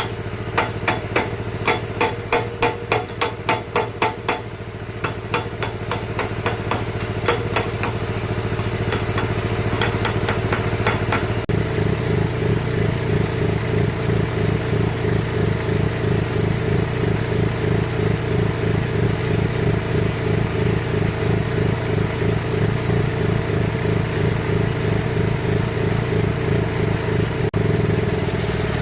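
Repeated hammer blows, about three a second, ringing over a running excavator engine. The blows thin out and stop after about 11 seconds, and then the engine runs louder with an even pulsing beat.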